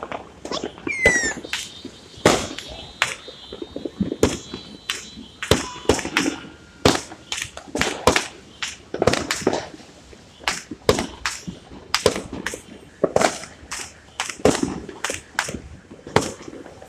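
Fireworks and firecrackers going off in irregular succession: sharp bangs about one or two a second, with a short falling whistle about a second in.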